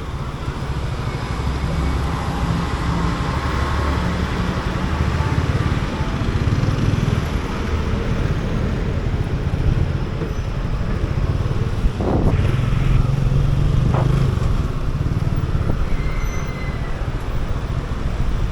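Motorcycle engine running at riding speed, heard from the rider's seat, over steady city traffic noise, with a brief louder swish about twelve seconds in.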